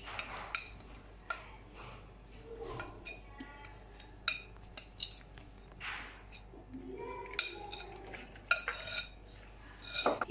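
Kitchen utensils clinking and scraping against a mixing bowl and cake mould as cake batter is poured and scraped out, with scattered sharp knocks and a few short metallic rings.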